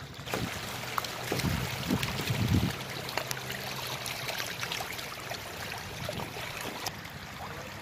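A mass of hybrid magur catfish writhing and flapping in shallow mud and water, a steady wet crackle of many small splashes and slaps. A few louder low thumps come between about one and three seconds in.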